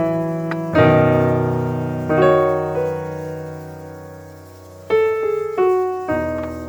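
Background piano music: slow chords struck every second or so, each fading away.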